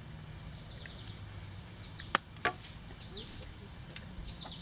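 Two sharp knocks about a third of a second apart, a little past the middle, over faint repeated chirps that fall in pitch, typical of small birds.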